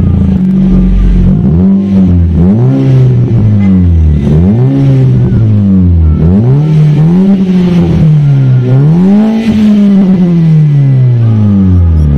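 Kia Rio's four-cylinder engine being free-revved, heard at the tailpipe through an HKS black titanium freeflow muffler. Short throttle blips make the exhaust note rise and fall about once a second, then in the last few seconds a longer rev climbs and slowly falls back down.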